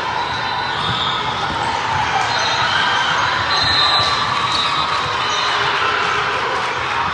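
Indoor gym game sound: a steady din of spectator chatter with short high shoe squeaks on the court and occasional ball thumps, echoing in the hall.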